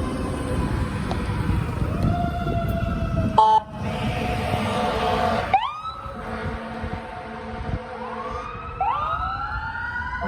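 Emergency vehicle sirens wailing, several winding up in pitch one after another, over a low engine rumble. A short loud horn blast sounds about three and a half seconds in.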